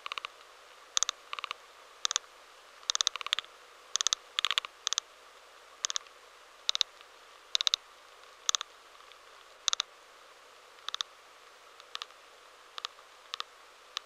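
Termites in wood sending communication signals, picked up by a high-sensitivity vibration recording: short bursts of rapid clicks, each a quick run of a few ticks, come slightly more than once a second at irregular intervals, over a faint steady hiss.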